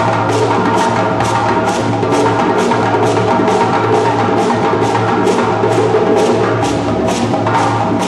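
West African drum ensemble of djembes and bass drums playing a steady, driving rhythm. Sharp slap strokes come evenly about three times a second over a continuous low drum pulse.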